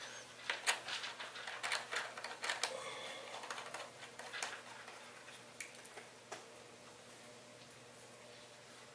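Light clicks and taps of hard plastic as DJI FPV Goggles V2 are handled and adjusted on a table, thinning out about halfway through to a few faint isolated clicks.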